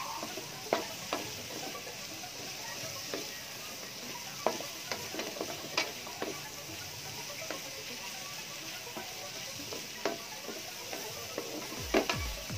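Sliced onions and carrots sizzling in oil in a metal wok, stirred with a wooden spatula that scrapes and knocks against the pan now and then.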